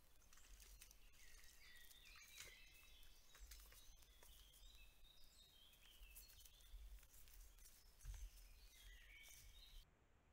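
Faint songbirds singing in a forest, several short overlapping phrases, with scattered clicks and a low rumble underneath. The birdsong stops suddenly near the end.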